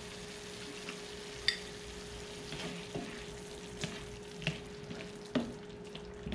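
Pork and pepper stir-fry sizzling in a nonstick frying pan as it is stirred with a spatula, with scattered light scrapes and taps of the spatula against the pan.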